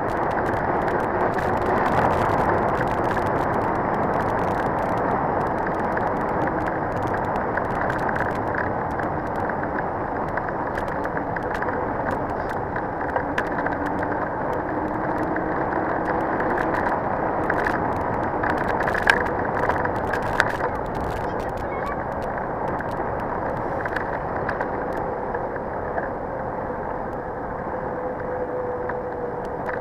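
Steady rush of wind and tyre noise from a mountain bike descending at close to 55 km/h, with a few sharp clicks past the middle.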